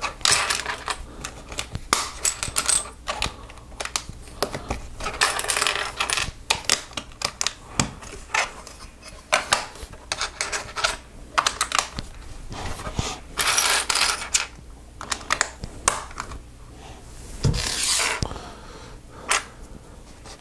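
Small plastic Lego pieces clicking and clattering as they are handled and snapped together, with several longer bursts of loose pieces rattling.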